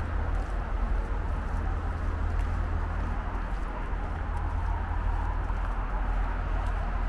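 Steady, unbroken noise of highway traffic, with a strong low rumble underneath.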